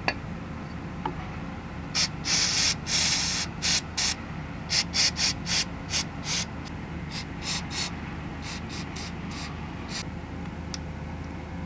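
Aerosol carburetor cleaner sprayed onto an opened motorcycle carburetor in hissing blasts: one longer spray of about a second and a half, then a quick series of short squirts. It is blasting loose gummed-up varnish deposits.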